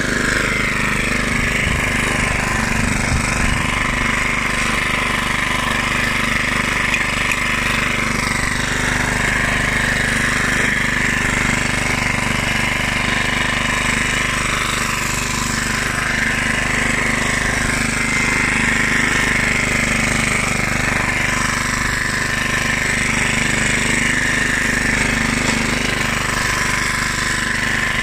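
1976 Hayterette rotary lawnmower's 3.5 hp Briggs & Stratton air-cooled side-valve single-cylinder engine running at a steady speed while mowing grass.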